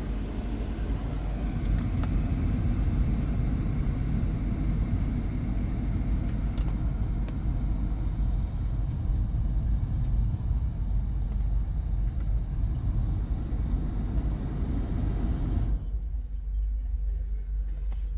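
A Mercedes-Benz C300's climate-control blower fan runs steadily in a rushing hiss, switched on by a scan-tool air-conditioning test, then cuts off suddenly near the end, leaving a low rumble.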